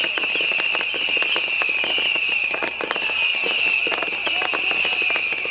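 Fireworks tower firing rockets and fountains all at once: a dense, unbroken rattle of rapid pops and bangs over a continuous high shrill whine.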